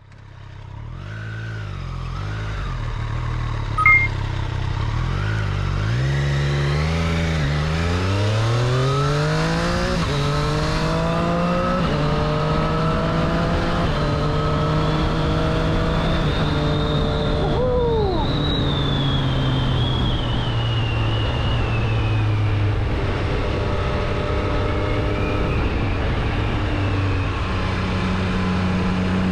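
The Triumph Street Triple 765 RS's inline three-cylinder engine accelerating hard through the gears. The note rises and drops at each shift, then runs steadier at speed with further shifts. A brief loud knock comes about four seconds in.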